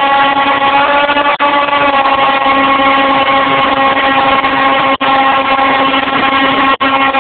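Electric motor and propeller of an FPV model airplane running at a steady speed, a droning hum of unchanging pitch. The sound cuts out for an instant three times.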